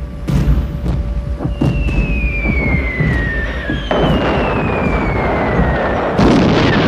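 Wartime bombing sound: a low battle rumble with two long falling whistles of dropping bombs, each about two seconds. A burst of explosion noise comes about four seconds in and a louder blast near the end.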